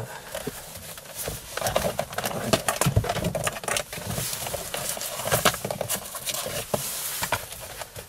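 Hard plastic console trim panel being pulled and worked loose by hand: irregular clicks, creaks and rattles as it flexes against its retaining tabs.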